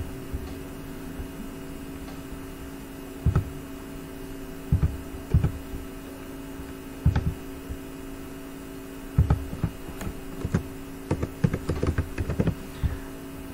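Computer keyboard and mouse clicks, scattered at first and then a quick run of keystrokes near the end, over a steady electrical hum.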